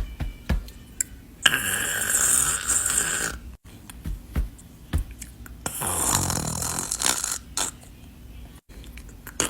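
A person snoring: two long drawn-out snores, about four seconds apart.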